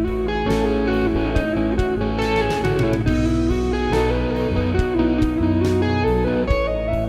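Background music: a blues-style electric guitar track with a steady beat.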